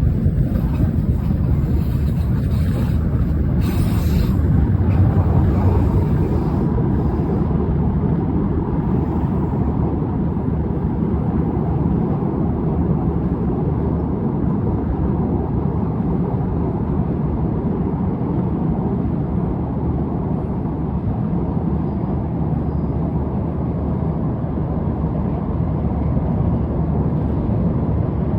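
Steady low rumble of a moving vehicle, with some wind on the microphone in the first few seconds.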